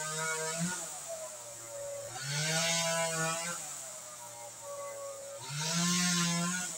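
NW258 two-stroke chainsaw running, its engine revved up twice for about a second each time and then dropping back.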